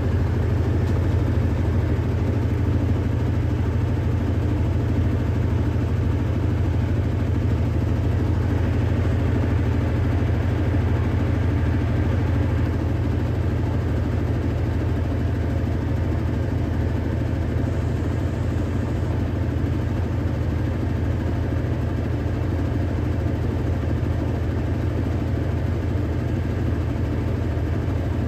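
Electrolux Ecologic 12 kg (LEC12) washing machine in its intermediate spin: the motor and drum run with a steady low hum.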